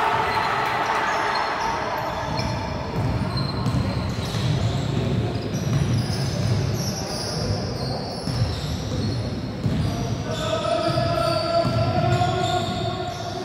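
A basketball being dribbled on a wooden court floor, bouncing again and again.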